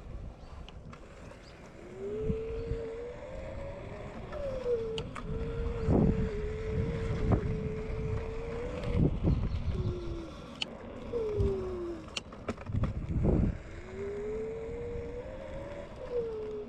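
Electric scooter's 450-watt motor whining as the scooter rides past, its pitch rising as it speeds up and falling as it slows, several times over. A few loud low rumbles break in, the strongest about six and thirteen seconds in.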